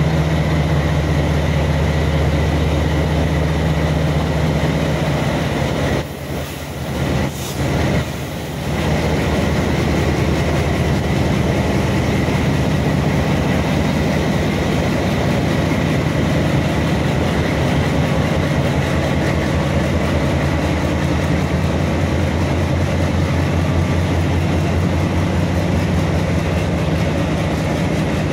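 Broad gauge diesel locomotives' engines running with a steady low hum. The sound drops briefly about six seconds in, then returns.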